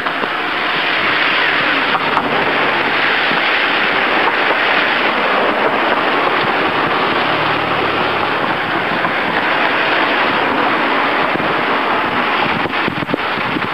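Steady rushing of wind on the microphone of a camera mounted low on a moving bicycle, mixed with tyre and road noise. A car passes a little past halfway, and a short rattle of knocks comes near the end.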